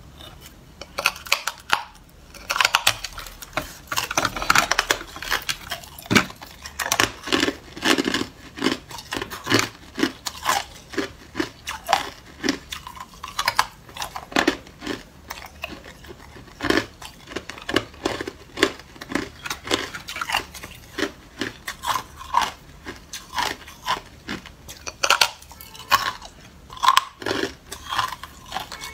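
Hard clear ice being bitten and chewed: a long run of sharp, irregular crunches, often one or two a second.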